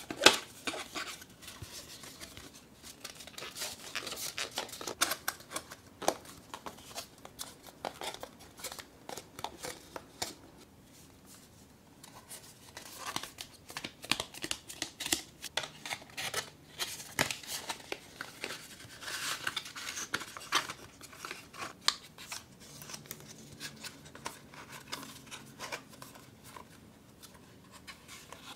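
Printed cardstock being handled, folded and creased, with tabs pushed into place: clusters of crisp paper rustling and small clicks, broken by short pauses.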